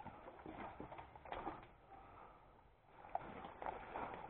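Quiet outdoor lull: faint rustling and a few soft ticks, dropping almost to silence about two seconds in.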